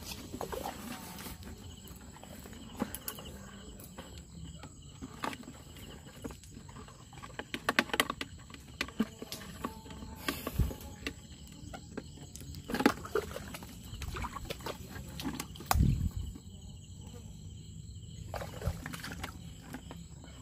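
Irregular clicks, snaps and rustling of mangrove twigs, roots and mud as people move and search through the mangrove undergrowth. A louder low thump comes about sixteen seconds in, over a faint steady high whine.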